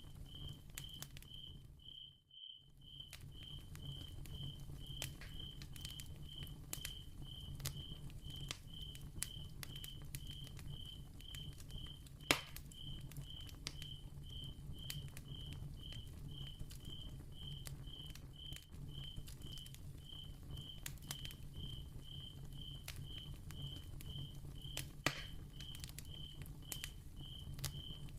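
Soft candle crackling with scattered small ticks and two louder pops, one about 12 seconds in and one near 25 seconds, over a low hum. A cricket chirps steadily about twice a second throughout. Everything drops out for a moment about two seconds in.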